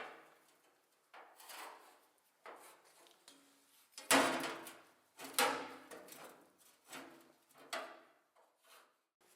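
A series of short scrapes and knocks, as of parts and tools being handled in a workshop. There are about seven of them, each fading quickly, and the loudest comes about four seconds in.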